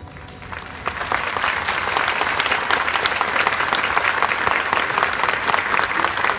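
A large crowd applauding: the clapping swells in over the first second, then holds as a dense, steady patter of many hands.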